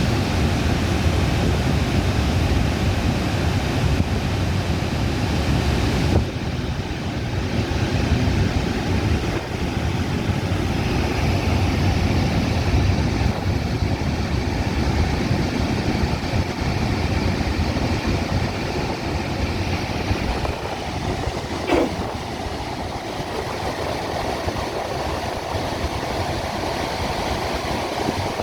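Waterfall: a steady rush of falling water with a strong low rumble, shifting slightly in tone about six seconds in.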